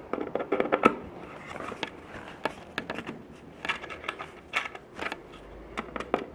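Irregular light clicks and scrapes of a small metal hanger being wiggled down into the channel of a metal picture frame, its screw backed off so it will fit.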